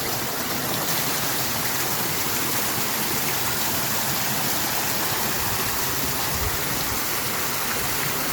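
Fountain water splashing and falling in a steady, even rush.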